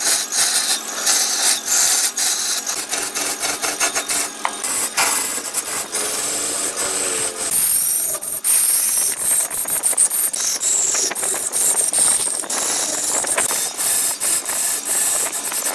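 Hand-held turning tool cutting into a large log spinning on a wood lathe: a continuous rasping scrape with a rapid clatter of flying wood shavings, and a brief hum of tool chatter about five to seven seconds in.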